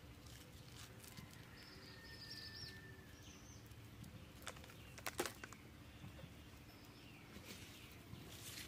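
Near-silent outdoor background with a faint bird chirp early in the middle, and a few sharp light clicks about five seconds in.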